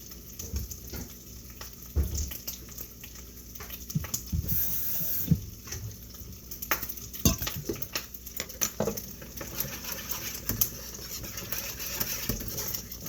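Cooking sounds: utensils clinking and scraping against pots and pans in irregular knocks, with a short rush of running water about four seconds in.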